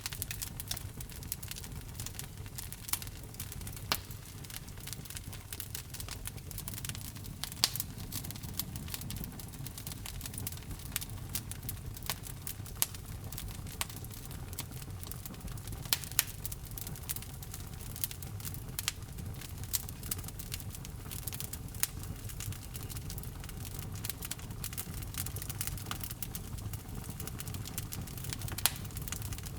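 Wood fire burning in a fireplace: a steady low rumble of flames with frequent, irregular crackles and pops, a few of them much sharper than the rest.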